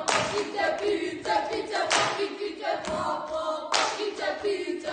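A group of children singing a Māori action song together, with several sharp hand claps or slaps cutting through the singing.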